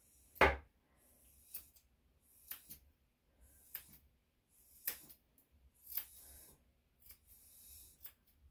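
Grooming scissors trimming the hair around a dog's paw: a series of sharp snips about a second apart, the loudest near the start, with soft rustling of fur between them.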